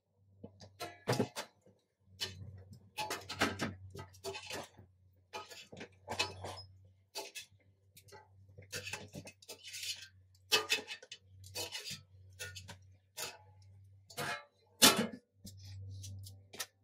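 Steak frying in avocado oil in a pan under a splatter cover, spitting with irregular pops and crackles, along with a few clicks and knocks of pan and utensils. A faint low hum comes and goes underneath.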